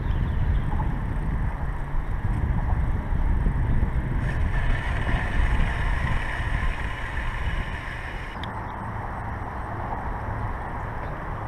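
Wind buffeting the microphone in a steady low rumble, with a higher, steadier hum joining from about four seconds in and stopping about eight seconds in.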